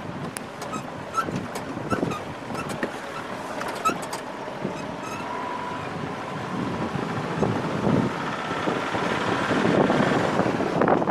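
Safari minivan driving over a rough dirt track: engine and tyre noise with wind buffeting the outside-mounted microphone, and knocks and rattles as the van bumps along. It grows louder about eight seconds in.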